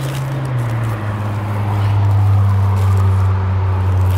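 A motor running with a low steady hum. Its pitch drops about a second in, then holds while it gets slightly louder.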